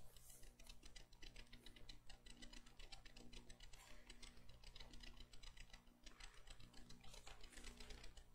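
Near silence: faint room tone with a steady low hum and light, rapid clicking.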